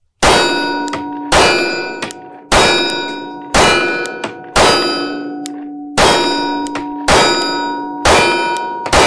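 Sig P365XL 9mm pistol firing Wolf steel-case ammunition at a steady pace of about one shot a second, eight shots in all. Each shot is followed by a long metallic ring, the clang of a steel target being hit. The pistol runs through the magazine without a malfunction.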